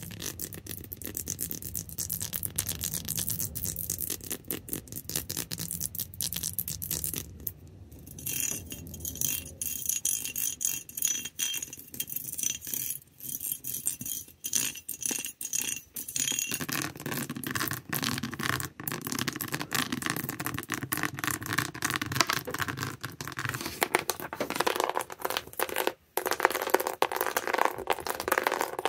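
Backs of fingernails scratching and tapping across objects, a dense run of small scratches and clicks. The texture changes twice: from about 8 to 16 seconds in, the scratched object gives a thin high ringing, and after that the scratching turns fuller.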